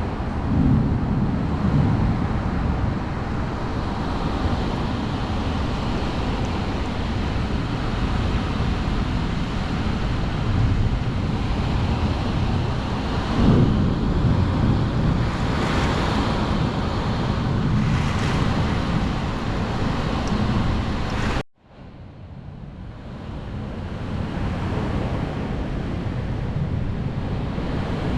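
Storm wind and rain, with heavy wind buffeting on the microphone and gusts swelling and easing. The sound cuts out abruptly about 21 seconds in and builds back over a couple of seconds.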